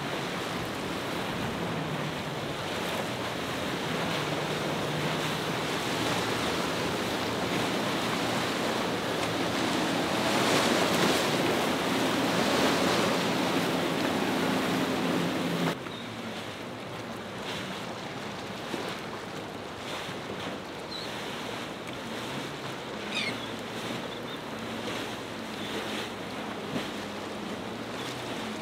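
Powerboats running through rough water: a steady engine drone under the rush of spray and waves against the hulls, with wind buffeting the microphone. The sound swells about halfway through, then drops suddenly to a quieter wash of water.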